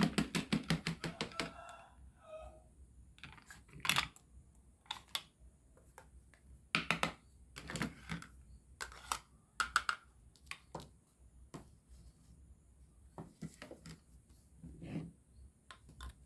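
Plastic toy pizza cutter rolling over a plastic toy pizza with a fast run of clicks for about the first second and a half, then scattered clicks and clacks of plastic and wooden toy food pieces being picked up and set down.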